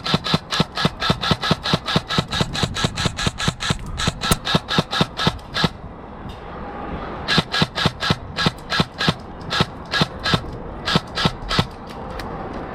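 Airsoft gun firing rapid shots at about five a second, in a long string that stops about six seconds in, then a second string of shots a second and a half later.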